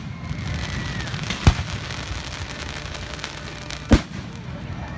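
Fireworks display: two loud bangs of exploding shells, about a second and a half in and again near four seconds, over a steady low rumble and crackle of further bursts.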